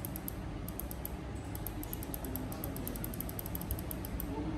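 Computer mouse scroll wheel clicking in quick runs of small ratchet-like ticks, with a short pause about half a second in.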